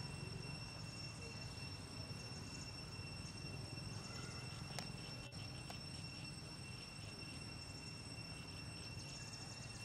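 Forest insects: a steady high-pitched drone with trains of rapid chirps, over a low rumble. A single sharp click about five seconds in.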